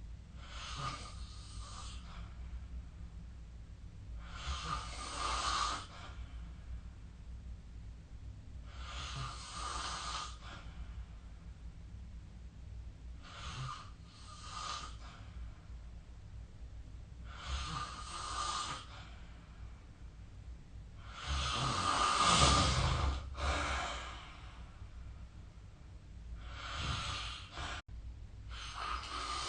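A sleeping person snoring, one noisy breath about every four seconds, some breaths in two parts. The loudest and deepest snore comes about three-quarters of the way through.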